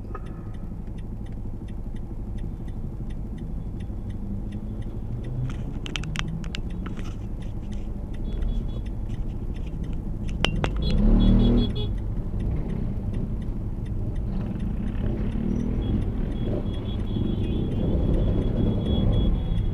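Road traffic heard from inside a car waiting at a junction: a low, steady engine hum, a scatter of light clicks about six seconds in, and a nearby vehicle pulling away, loudest and rising in pitch about eleven seconds in.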